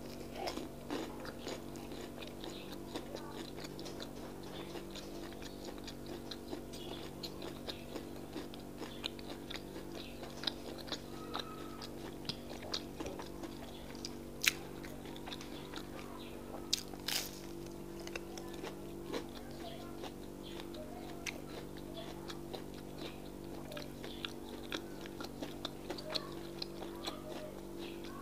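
Close-miked chewing of akara, fried bean cakes, with soft crunching and many small wet mouth clicks, two of them sharper near the middle, over a steady low hum.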